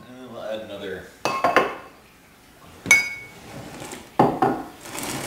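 Knocks and a sharp glassy clink as a large glass flour jar is handled and set down on a wooden counter: two knocks in quick succession, a ringing clink about three seconds in, and another knock a second later.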